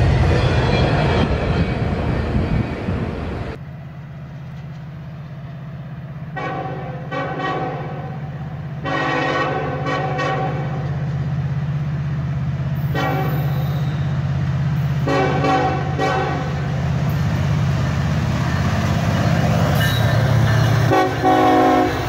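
A freight train rolling past, its noise ending suddenly after a few seconds. Then a Norfolk Southern diesel locomotive approaches with its engine running in a steady low drone and sounds its horn in a run of short blasts, a longer blast and two more, with another loud horn blast near the end as it comes alongside.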